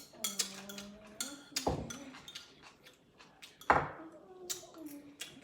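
Cutlery and dishes clinking, with two louder knocks about two seconds apart.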